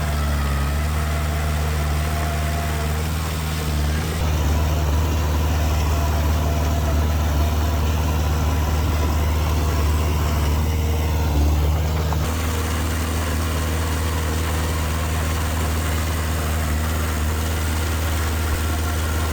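Diesel engine of heavy earthmoving machinery running steadily. It grows a little louder about four seconds in and drops back about twelve seconds in.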